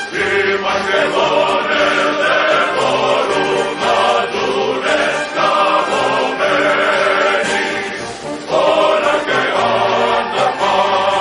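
Choral music, a choir singing held notes over an accompaniment, changing chord about every second.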